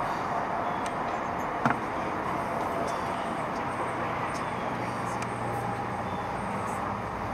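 Steady background hiss, fairly loud, with a faint steady tone running through it and one sharp knock about a second and a half in.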